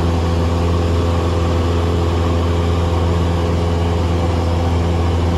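Single-engine light aircraft's piston engine and propeller droning steadily in cruise, heard from inside the cabin: a strong low hum with a few steady higher tones above it, holding one pitch.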